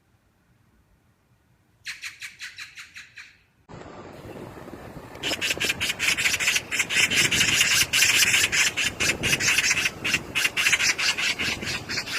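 Magpie chattering: a short rattle of rapid harsh calls about two seconds in, then a longer, louder run of fast repeated rasping calls from about five seconds in, over a steady background hiss.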